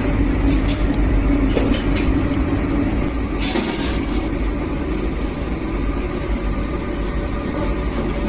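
Steady low rumble with a hum, of the vehicle or urban kind, with a few short clicks and a brief hissing burst about three and a half seconds in.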